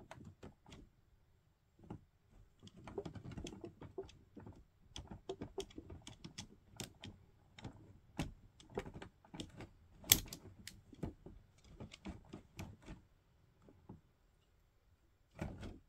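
Hard plastic toy parts clicking as they are handled: a quick, irregular run of small clicks and taps, several a second, with one sharper snap about ten seconds in.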